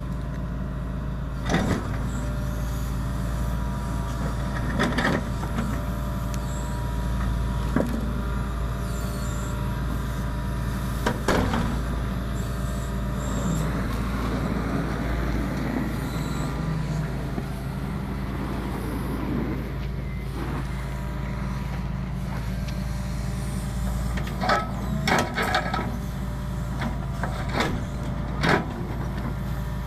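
Hitachi ZAXIS 170W wheeled excavator's diesel engine running steadily under digging load. Sharp knocks and scrapes come from the steel bucket striking hard ground, a few seconds apart early on and in a quick cluster near the end.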